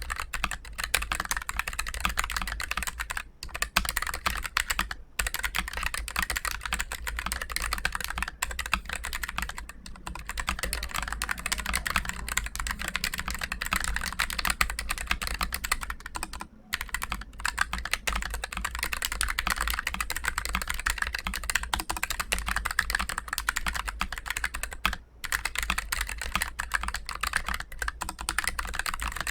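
Keychron K3 Pro low-profile mechanical keyboard with Gateron low-profile brown tactile switches being typed on quickly and continuously. The key clacks come in a dense run, broken by a few brief pauses.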